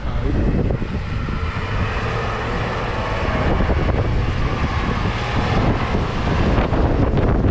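Wind buffeting the microphone in a snowstorm, with a vehicle going by on the street: a steady hiss that swells through the middle and fades near the end.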